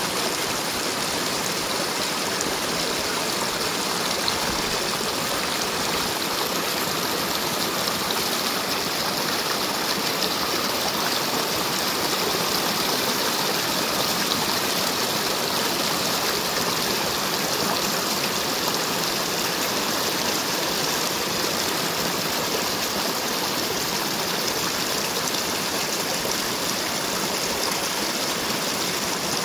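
Small forest brook rushing and splashing steadily as it tumbles in a shallow cascade over stones, roots and fallen leaves.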